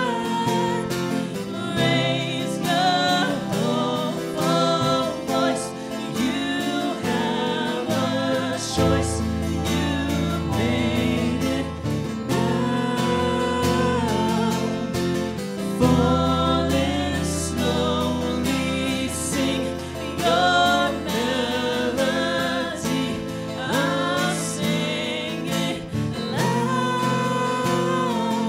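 Live song: a woman singing with wide vibrato, accompanied by strummed guitars and keyboard, with deep held bass notes through the middle of the passage.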